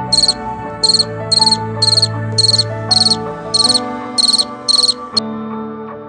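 Cricket chirping over soft background music: about ten short, high chirps, roughly two a second, that stop about five seconds in while the music's held notes carry on beneath.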